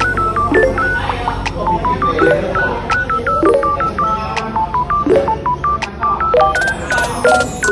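Background music: an electronic track with a quick line of short, beep-like notes over repeating lower notes and a steady bass.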